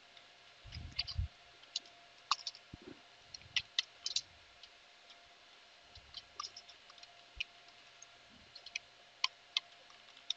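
Computer keyboard keys clicking in irregular, scattered bursts as commands are typed, with a few dull low thumps in the first three seconds. A faint steady hum lies underneath.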